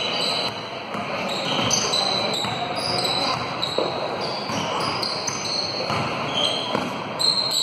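Basketball game sounds in a reverberant school gym: sneakers squeaking briefly and repeatedly on the hardwood floor, and the ball being bounced, over a background of voices.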